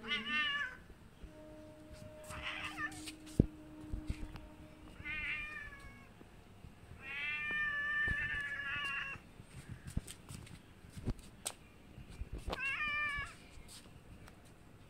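Domestic cat meowing repeatedly, about five meows, one of them drawn out for about two seconds in the middle. A few sharp clicks fall between the meows, the loudest just over three seconds in.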